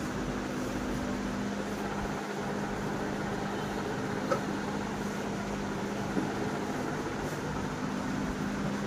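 Steady mechanical whir with a low hum, like running cooling fans, with a sharp click about four seconds in and a softer one about two seconds later.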